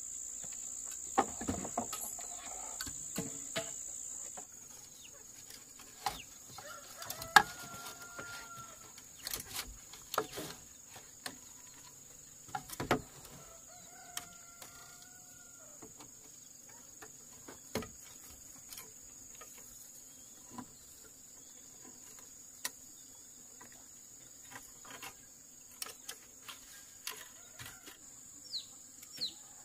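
Chickens clucking now and then over a steady, high-pitched insect drone that drops in loudness about four seconds in, with scattered sharp knocks and taps.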